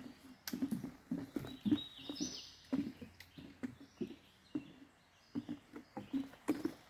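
Footsteps of hikers walking on a forest trail, about two steps a second. A bird calls briefly, high-pitched, about two seconds in.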